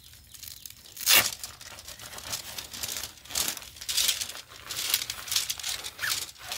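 Nylon tent fabric and a tent-pole bag rustling and crinkling as they are handled, in a series of swishes, the loudest about a second in.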